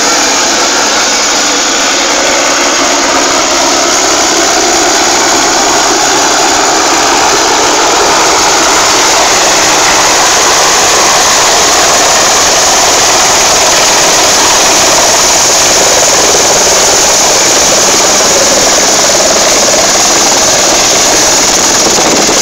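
Helicopter running loud and steady at close range, a dense unbroken rush of turbine and rotor noise, as it comes in to land.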